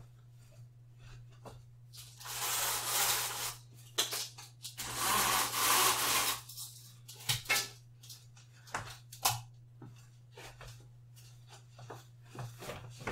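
A curtain being drawn across a window: two long fabric swishes, each a second or two, with scattered light clicks and knocks around them.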